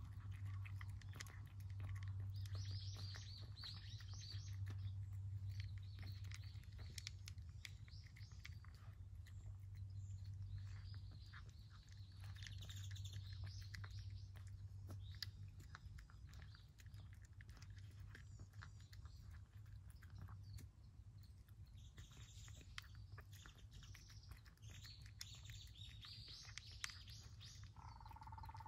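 Cat chewing and lapping wet food from a plate, a run of small wet clicks and smacks, with birds chirping in the background in several bouts and a steady low hum underneath.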